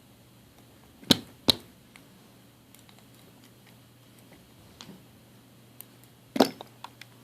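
A few sharp knocks and clicks: two loud ones about a second in, half a second apart, then another loud one near the end followed by a few lighter clicks.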